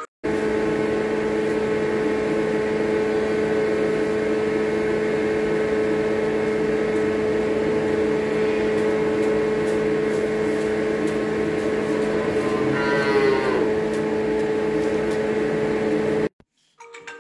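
A steady machine hum fills the stable, and a calf moos once about thirteen seconds in. The sound cuts off suddenly near the end.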